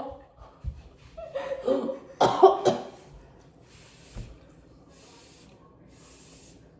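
A young woman coughing a few times in quick succession, her voice sounding through the coughs, followed by faint short breaths.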